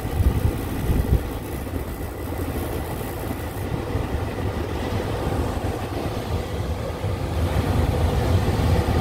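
Daikin rooftop package unit's draft-inducer (venter) motor running steadily, a continuous low hum with a faint steady whine above it. It has started on the heat call now that the 24-volt short at the high-limit switch is fixed.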